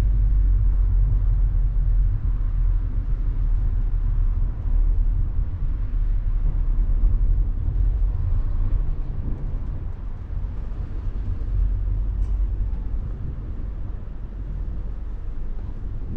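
A Smart fortwo cabrio with its roof open, heard from inside the cabin while driving in city traffic: a steady low rumble of its small three-cylinder engine and tyre noise, wavering in level and easing a little in the second half.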